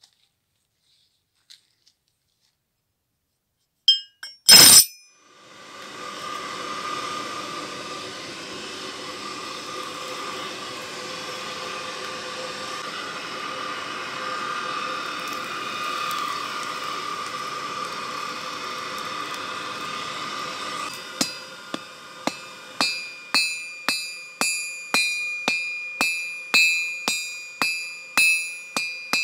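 A sharp metal clank, then the homemade forge's blower runs steadily with an even hum for about fifteen seconds. After that, a hammer beats red-hot leaf-spring steel on a 180-pound anvil, about two blows a second, each with a bright metallic ring.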